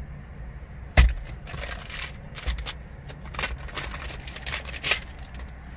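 Clear plastic packaging bag crinkling and rustling in the hands, with one sharp knock about a second in, over a steady low rumble.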